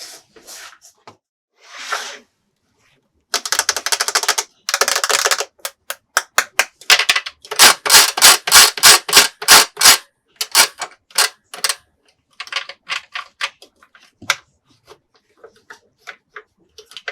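A rapid series of sharp clicks and rattles. After a few faint clicks it turns into a dense rattling burst, then a loud, even run of about five clicks a second for several seconds, then thins out into sparser clicks.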